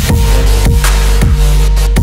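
Background electronic dance music with a heavy bass and a kick drum about twice a second.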